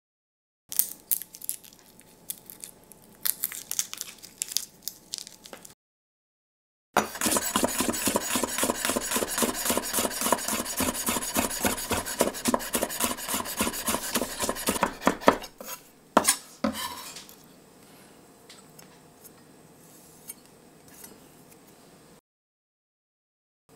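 Chef's knife rapidly chopping a garlic clove on a wooden cutting board: a fast, even run of sharp knocks lasting about eight seconds, starting about seven seconds in. Before it comes a soft dry crackle of the clove's skin being peeled by hand. After it there are a few separate knocks and then faint light handling ticks.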